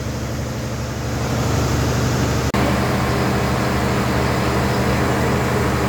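Steady low machine hum with a few constant tones, broken off for an instant about two and a half seconds in and then carrying on slightly louder.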